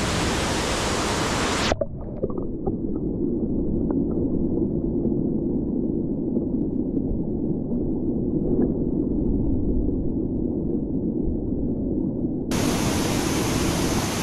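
Small waterfall splashing into a rock pool, a steady rush of water. About two seconds in it turns abruptly muffled and low as the microphone goes underwater: a dull rumble of the falls with a few faint clicks. The full rush returns near the end as the microphone surfaces.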